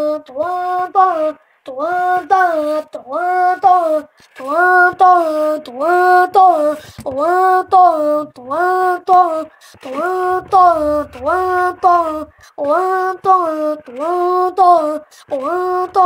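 A child's voice chanting a high, sing-song "toan, toan, toan" over and over, about three syllables a second with a few short breaks for breath, mimicking the drum of a washing machine agitating.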